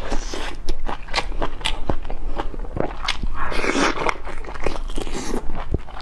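Close-miked mukbang eating of fatty meat: a run of wet bites, chews and mouth smacks, with a longer, louder noisy stretch about three and a half seconds in.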